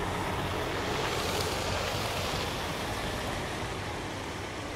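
A car driving past close by through slushy snow, its tyre hiss swelling about a second and a half in and then easing off, over a low engine hum.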